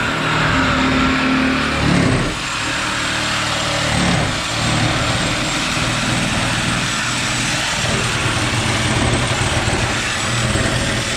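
A car engine running, its low pitch shifting about two seconds in and again about four and a half seconds in.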